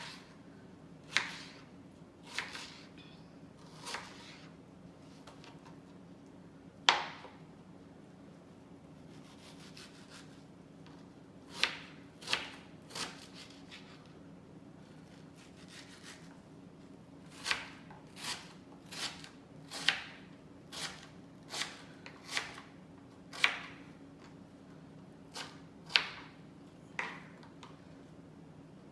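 Kitchen knife cutting a mango on a cutting board: irregular sharp knocks of the blade striking the board, with a lull in the middle third, over a faint steady low hum.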